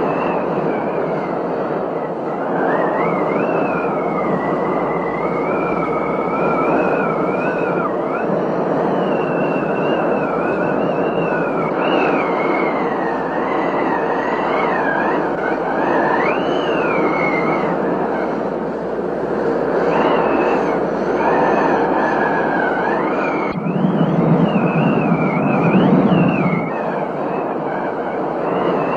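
Thunderstorm wind and rain, with the wind whistling in tones that waver up and down. About 24 seconds in, a louder, deeper rumble of thunder lasts for a few seconds.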